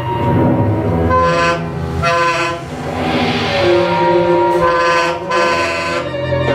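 Large jazz ensemble with saxophones, trombones and trumpets playing loud held chords that change every second or so, with a brighter, noisier swell in the middle.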